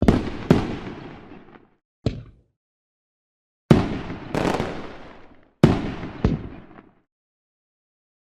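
Fireworks sound effect: a run of sharp bangs, several coming in pairs about half a second apart, each followed by a fading tail, with gaps of dead silence between the groups and for the last second or so.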